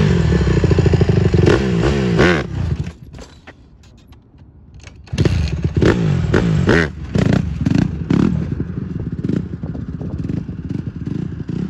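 Honda CRF150R's single-cylinder four-stroke engine revving as the dirt bike is ridden up into a wheelie. The revs rise sharply in the first couple of seconds, the sound then drops low for about two seconds, and from about halfway it is revved hard several times before running more steadily.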